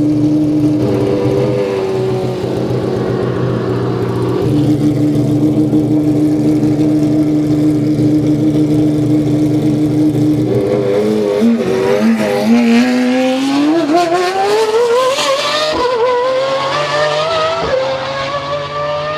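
Supercar engine running at a steady pitch, then accelerating hard: its note climbs steadily from about twelve seconds in, with a gear change near the end.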